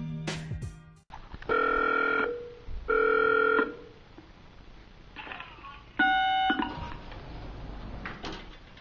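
Electronic beeps: two long, steady beeps about half a second apart, then a shorter, higher beep about six seconds in.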